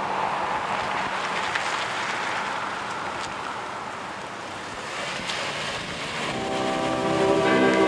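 An SUV driving away: steady engine and road noise, with no clear rhythm. About six seconds in, music of held, sustained notes comes in over it.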